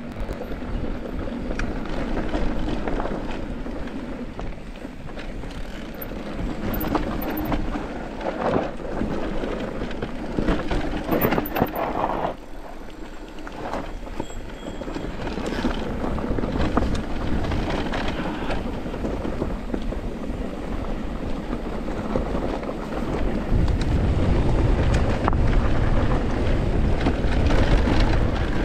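Electric mountain bike riding down a dirt trail: tyres rolling over the dirt and the bike clattering over bumps, with wind buffeting the microphone, heavier for the last few seconds.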